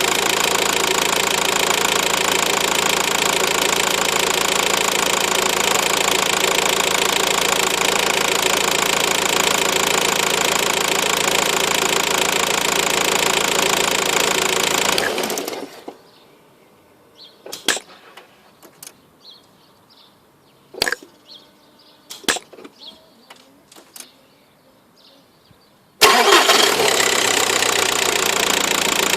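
Car engine running steadily, then shut off about halfway through; in the quiet a few sharp clicks and knocks sound, and the engine is started again near the end. The noise is one the owner suspects comes from a failing turbocharger or a clapping EGR valve.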